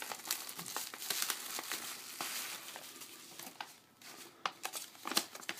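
Bubble wrap and a paper sleeve crinkling and crackling as they are pulled open by hand. The crackling thins out about four seconds in, with a few sharp clicks near the end.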